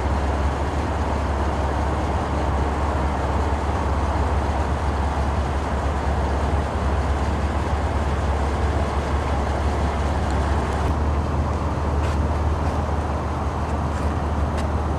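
Steady low rumble of a car driving slowly, its engine and tyre noise heard from inside, with a few faint clicks near the end.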